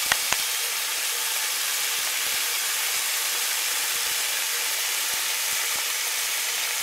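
Diced hare meat sizzling in oil in a nonstick frying pan on a propane camp stove: a steady, even hiss. Two light clicks sound right at the start.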